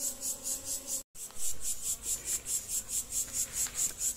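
An insect chirping high and steady in an even rhythm of about five pulses a second. A faint low hum lies under it until the sound drops out for an instant about a second in.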